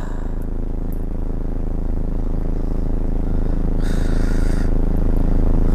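Car engine idling, heard inside the cabin as a steady low hum, with a brief hiss about four seconds in.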